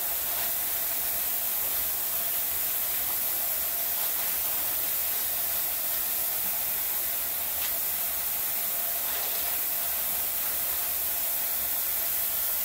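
Kitchen faucet running a steady stream of water into a stainless steel sink basin, a constant hiss. A few faint soft taps sound over it.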